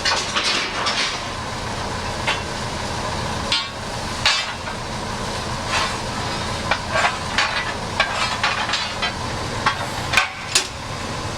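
Irregular metallic clanks and scrapes of firing tools working in a coal-fired steam locomotive's firebox, over a steady low rumble and hiss.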